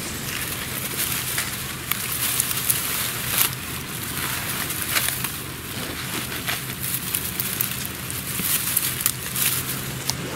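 Dry straw and grass crackling and rustling as it is crushed and disturbed, a dense, irregular run of sharp crackles.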